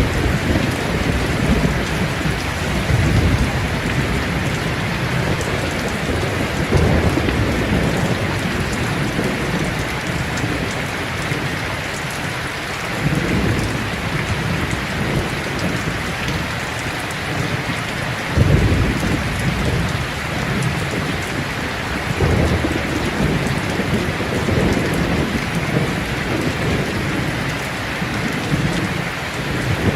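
Heavy rain pouring steadily, with low thunder rolling in again and again; the loudest rumble comes about two-thirds of the way through.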